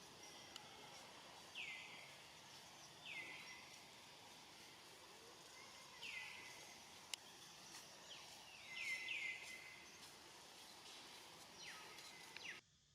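Short, high animal calls, each sliding down in pitch, repeated every second or two and a few times in quick succession, over a faint outdoor background.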